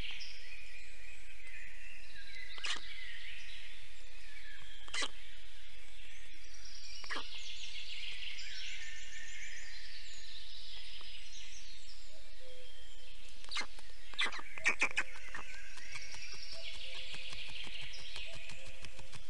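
Forest songbirds singing repeated high, rapidly trilled phrases every few seconds over a steady background hiss, with a few sharp clicks, several of them close together near the end.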